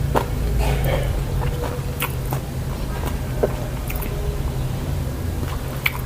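Close-miked eating: chewing with scattered wet mouth clicks and smacks, over a low steady hum.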